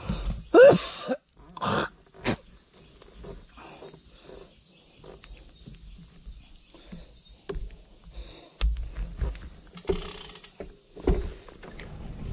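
A steady high-pitched insect drone, with a few short calls that bend up and down in pitch in the first two seconds and scattered light clicks.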